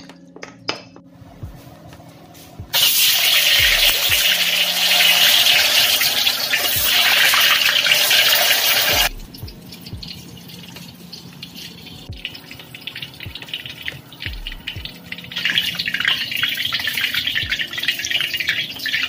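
White tofu cubes deep-frying in hot oil in a steel wok, sizzling hard as they fry toward golden. The sizzle starts abruptly about three seconds in, drops sharply after about nine seconds, and swells again in the last few seconds.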